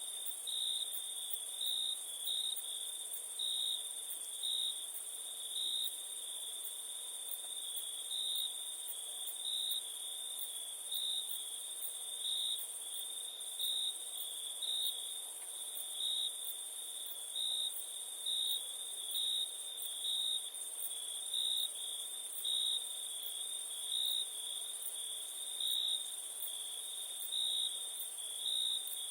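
Crickets chirping at night: a continuous high trill with a louder chirp repeating a little more than once a second, over a second, higher-pitched continuous trill.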